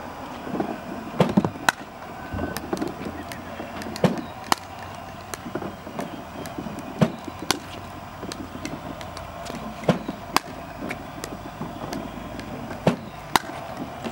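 Pickleball paddles striking a hard plastic pickleball in a fast drive-and-block exchange: sharp pops come in pairs about half a second apart, roughly every three seconds, with fainter clicks in between.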